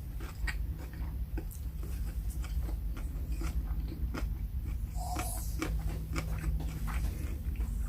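Close-miked chewing and biting of a Subway sandwich: wet mouth clicks and crunches. A dog gives a short whine about five seconds in.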